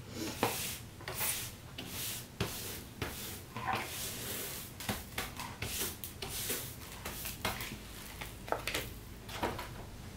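Hand brush sweeping crumbs of cut glass across a cutting mat in quick, uneven strokes, roughly two a second.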